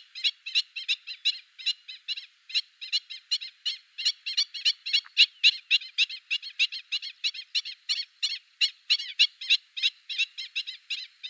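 Black-winged stilts calling: a rapid, steady series of sharp, yapping 'kek' notes, about four a second.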